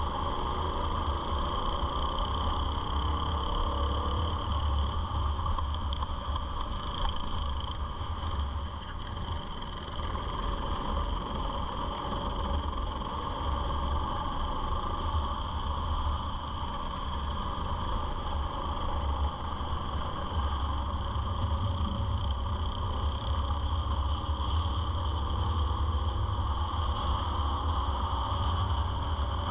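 Go-kart engine running at racing speed, heard from a camera mounted on the kart, with heavy wind rumble on the microphone. The engine's pitch rises in places near the start and toward the end.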